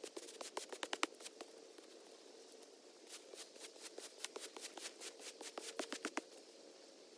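Push broom bristles scratching across an artificial turf pad in quick strokes, one run in the first second or so and another from about three to six seconds in.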